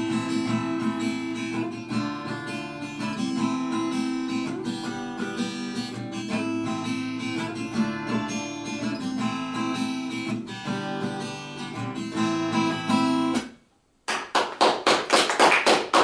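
Acoustic guitar playing the instrumental close of a song with no singing, stopping about thirteen and a half seconds in. After a brief gap, a few people clap hands in a quick, even rhythm.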